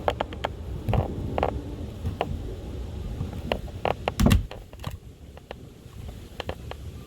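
Scattered small clicks and scrapes of a screwdriver prying at the soft metal bezel ring of a motorcycle tachometer, with one louder knock about four seconds in.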